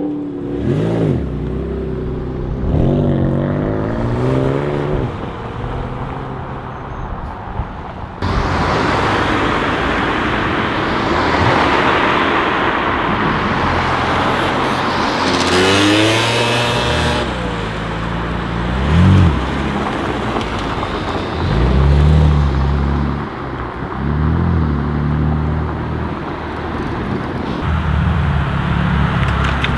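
BMW M4 F82's twin-turbo inline-six through a titanium Akrapovic exhaust, revved again and again in short blips, with one long rising rev about halfway through. A steady rushing noise starts suddenly about eight seconds in and stays under the engine.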